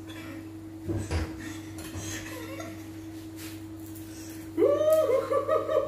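Quiet kitchen sounds over a steady low hum, with a soft knock about a second in; near the end a woman's voice comes in, drawn out on held notes.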